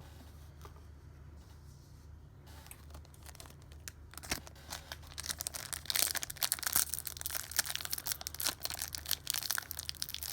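Foil wrapper of a Pokémon TCG booster pack being torn open and crinkled by hand, starting faintly a couple of seconds in and growing into dense, loud crinkling and tearing about halfway through.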